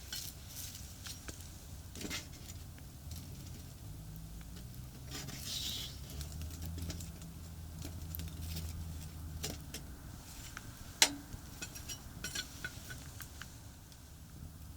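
Low rumble of traffic on a nearby expressway, swelling through the middle, over scattered small clicks and knocks, with one sharp crack about eleven seconds in.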